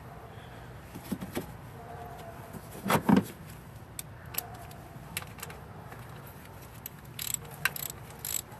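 Scattered metallic clinks and clicks of a ratchet, socket and coil pack being handled over the engine. There is one louder knock about three seconds in, and a run of quick clicks near the end as the ratchet and socket go onto a coil-pack bolt.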